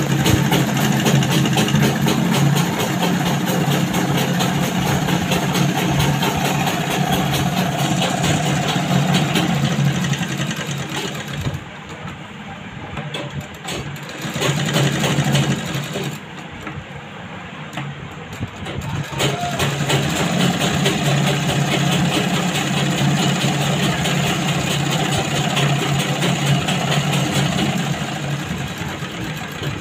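Motorised sewing machine running as it stitches fabric: a steady motor hum under a fast, even needle clatter. It eases off about twelve seconds in and again for a few seconds after sixteen, then runs steadily again.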